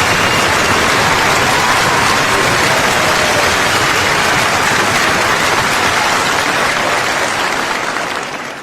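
Crowd applause, a dense steady clatter of many hands that fades out over the last second or so.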